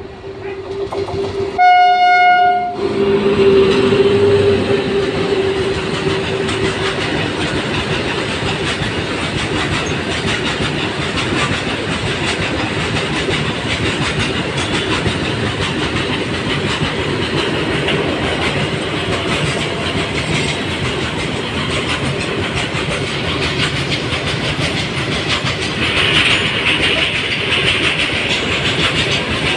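A train horn sounds once, briefly, about two seconds in, then a long freight train of open box wagons rolls through on the adjacent track: a steady loud rumble with wheels clicking over rail joints.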